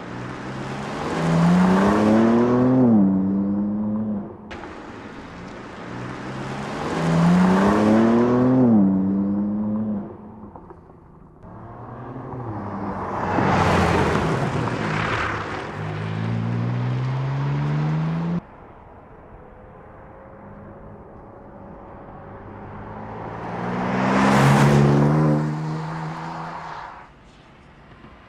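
BMW M4 Competition's twin-turbo 3.0-litre inline-six accelerating hard four times, revs climbing and dropping back at each upshift before climbing again. The pulls are separated by sudden cuts.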